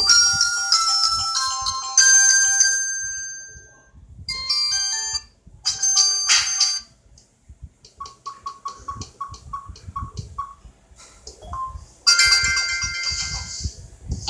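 Samsung U600 ringtones played through a Samsung L770 mobile phone's speaker: a bright electronic melody that fades out about four seconds in, two short phrases of another tune, a run of short beeps about three a second, and a new ringtone starting loudly near the end.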